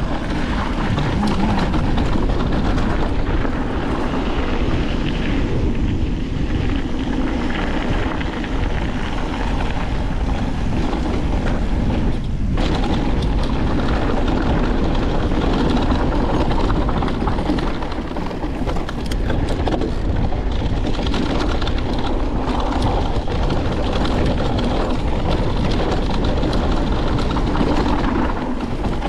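Electric mountain bike descending a dirt and rock singletrack: a steady rumble of tyres over the trail and rattling of the bike, mixed with wind noise.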